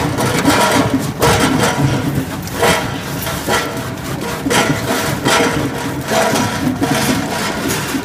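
Stainless-steel ginger processing machine running, with ginger pieces clattering and scraping against its steel drum and chutes, and a knock about once a second.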